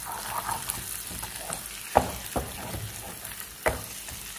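Eggs with onion and tomato sizzling in a frying pan over high heat while a wooden spatula stirs and scrapes them, knocking sharply against the pan a few times, loudest about two seconds in.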